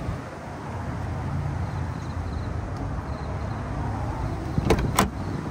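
A car door's handle and latch clicking twice in quick succession near the end as the BMW E30 coupe's driver door is opened. Under it is a steady low outdoor rumble.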